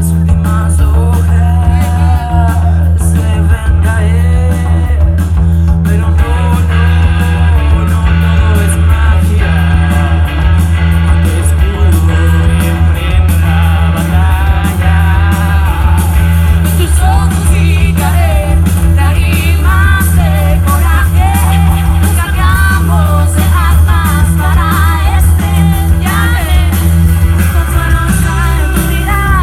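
Indie rock band playing live: loud, sustained bass and guitar under a sung vocal line, with the singing growing busier about halfway through.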